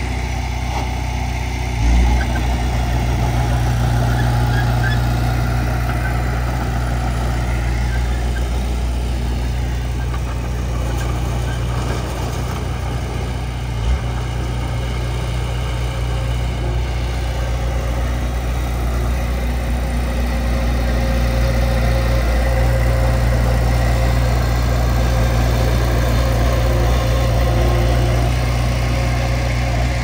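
Heavy earthmoving machine's diesel engine running steadily with a deep, even drone, with two brief knocks, one about two seconds in and another about halfway through.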